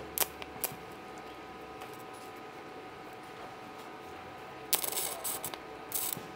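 Hồng Ký HK416 welding machine switched on, giving a steady whine, with a few short metallic clicks in the first second and a quick cluster of sharp clattering rattles about five seconds in.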